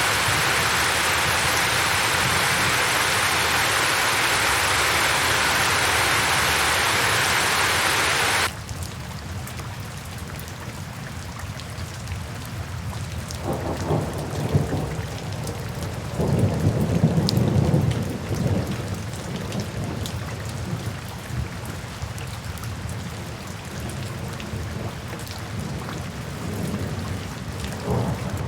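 Heavy rain hissing steadily, cutting off abruptly about eight seconds in to a quieter, lighter rain. Low rolls of thunder rumble twice around the middle.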